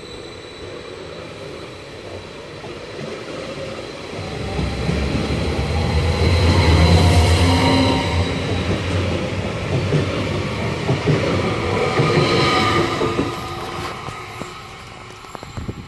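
SBB Stadler FLIRT electric multiple unit (RABe 523) running past along a station platform. A low rumble builds about four seconds in, is loudest a few seconds later and fades near the end, with high wheel squeal mixed in.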